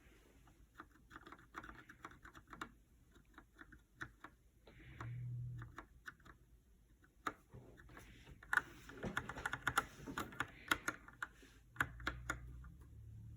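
HK Gaming GK61 mechanical keyboard with Gateron Optical Brown switches being typed on: uneven keystroke clicks that thicken into a fast run of typing in the second half.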